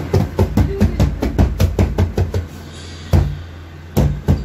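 Background music with a fast, steady drum beat over a held bass note. The beat drops out for about a second after a single heavy hit, then comes back near the end.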